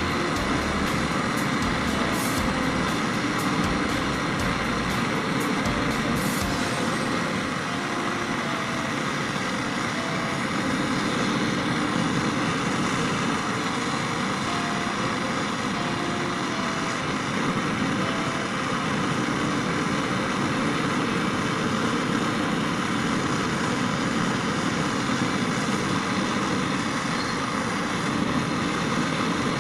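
Gas brazing torch flame burning with a steady rushing hiss while a refrigerator line is brazed. A few low knocks come in the first six seconds.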